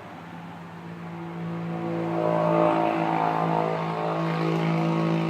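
Vehicle engine running with a steady pitched hum, growing louder over the first two seconds or so and then holding.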